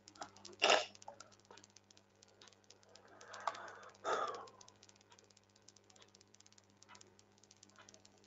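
Faint computer keyboard keystrokes and clicks over a low steady electrical hum, with two louder short breathy noises, one about a second in and one around four seconds.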